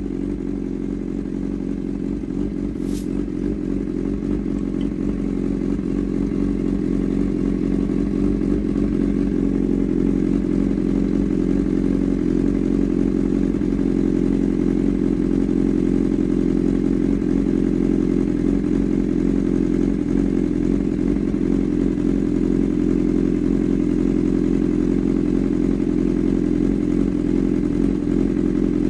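Honda CB1000R's inline-four engine idling steadily through a Black Widow aftermarket exhaust, growing a little louder over the first ten seconds or so.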